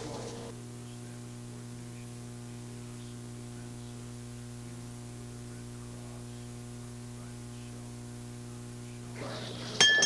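Steady low electrical hum with a faint buzz: mains hum on an old broadcast audio line carrying no programme sound. Just before the end a brief glassy clink rings out.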